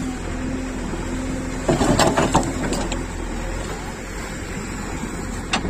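JCB 3DX backhoe loader's diesel engine running steadily while the backhoe digs wet river sand, with a cluster of sharp clanks about two seconds in and a single knock near the end.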